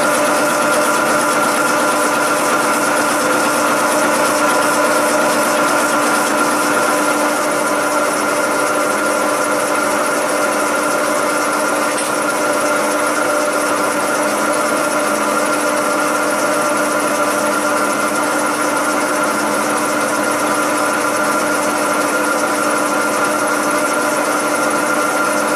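Milling machine running at a higher spindle speed while a freshly sharpened end mill cuts along the end of a steel block, a finishing pass. The machine gives a steady whine over the hiss of the cut.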